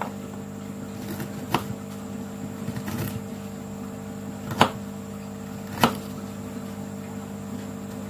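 Kitchen knife slicing fresh ginger on a plastic cutting board: a few sharp, irregular taps as the blade meets the board, the loudest about four and a half and six seconds in, over a steady low hum.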